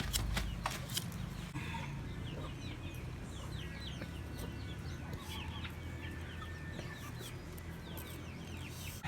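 Chickens nearby: many short, high, falling peeps and chirps over a steady low hum, with a few sharp clicks in the first second.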